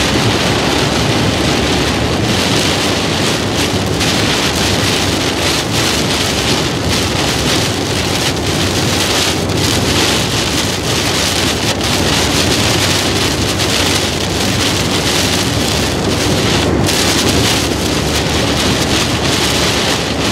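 Lashing cloudburst pounding on a moving car's roof and windscreen, heard from inside the cabin as a loud, steady rush of rain.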